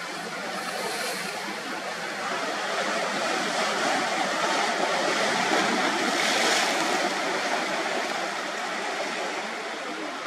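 Steady rush of sea surf, swelling a little past the middle and easing off again.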